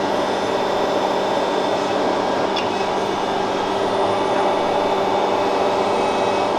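Steady machine hum and drone, with several steady tones, running without letup; faint light ticks come about two and a half seconds in.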